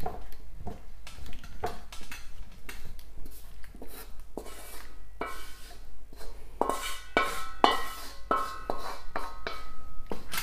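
Wooden spatula scraping and knocking against a wok as chicken and potatoes in sauce are pushed out into a ceramic bowl: a quick run of scrapes and knocks, several of them in the second half leaving a brief metallic ring.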